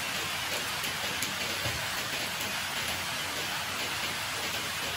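Steady rain falling on a wet concrete yard, an even hiss of rainfall with no let-up.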